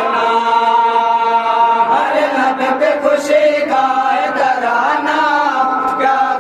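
A group of men chanting together in unison. They hold long steady notes for about the first two seconds, then move through a melodic line.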